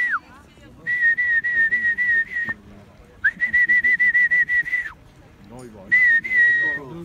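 A person whistling long, steady high notes with a slight waver: the end of one note, then three long whistles in a row, calling birds circling overhead to come in.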